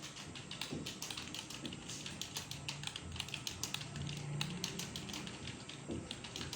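Several students typing at once on computer keyboards: a dense, irregular patter of key clicks from many keyboards overlapping.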